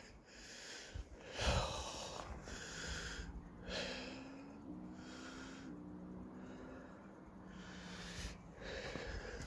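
A man breathing heavily close to the microphone, one audible breath about every second or so. A faint steady low hum runs underneath for a few seconds in the middle.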